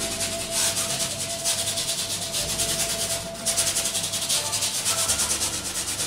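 Bristle paintbrush rubbed rapidly back and forth over a stretched canvas, a steady scrubbing hiss of quick strokes with a brief break a little past the middle.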